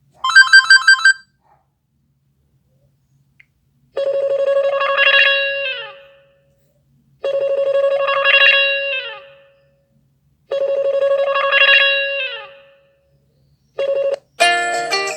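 A smartphone speaker plays classic LG ringtones. A short burst of quick notes comes first, then a ringing phrase repeats three times about three seconds apart, each one fading out. A different, more musical ringtone starts just before the end.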